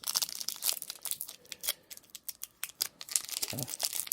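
Foil wrapper of a Pokémon TCG booster pack being crinkled and torn open, a dense run of sharp crackles.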